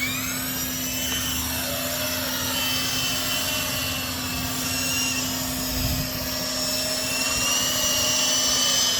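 RC helicopter's motor and rotors spooling up with a rising whine at the start, then running with a high, multi-pitched whine that wavers up and down with the throttle.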